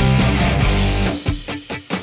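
Background rock music with guitar; about a second in it breaks off into a series of short, separate hits.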